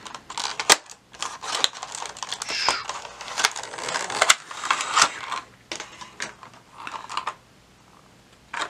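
Plastic-and-cardboard packaging being handled: a clear plastic blister tray holding a cube spinner is slid out of its cardboard box, with a busy run of clicks, crinkles and scrapes that falls quiet near the end.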